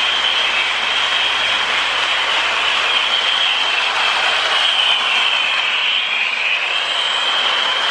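Lionel MPC 8206 Hudson O-gauge toy steam locomotive running on three-rail track with a long train of cars behind it: a steady whirring, rolling noise of motor and wheels on the rails. A high whine wavers through it and dips in pitch a little past halfway.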